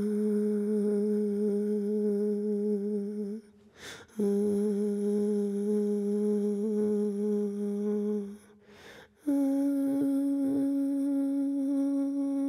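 A person humming three long steady notes, each about four seconds, with a short breath between them; the last note is higher than the first two.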